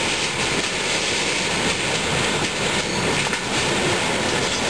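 Old Chevy pickup truck pushing into a small shed: the engine runs under load over a steady rattling, scraping and crunching of the shed's sheet metal and wood.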